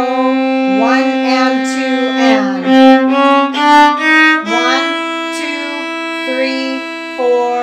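Viola played with the bow, loud and sustained: held notes that step from one pitch to the next, with a few slides downward.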